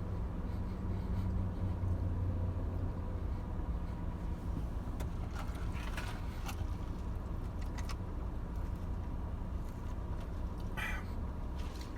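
A steady low hum runs throughout, with a few faint short crackles and clicks about halfway through and again near the end, from someone biting into and chewing a toasted sandwich.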